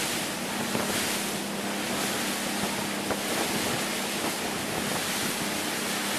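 Wind blowing across the microphone over choppy open water, with the steady low drone of a motorboat engine underneath.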